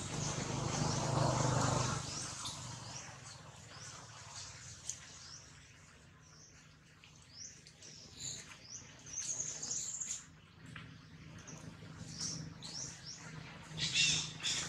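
Small birds chirping throughout, with a low hum during the first couple of seconds. Near the end, a baby long-tailed macaque gives a short, loud, high-pitched squeal.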